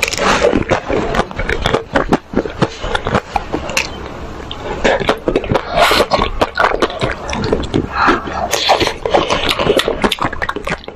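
Close-miked mouth sounds of eating ice cream: a dense run of wet smacks, slurps and sharp clicks, a little quieter for a couple of seconds early on.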